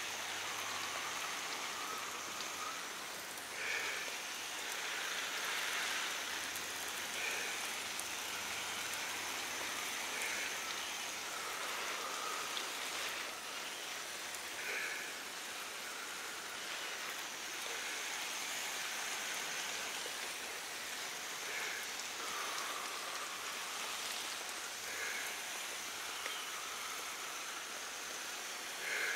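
Water spraying steadily onto dry sugarcane mulch and young vegetable plants, a continuous rain-like patter and hiss as the new no-dig bed is soaked for its first watering.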